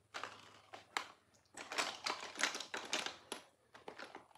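Plastic makeup containers clicking and clattering as they are rummaged through and handled, a quick, irregular run of clicks and knocks that is busiest in the middle.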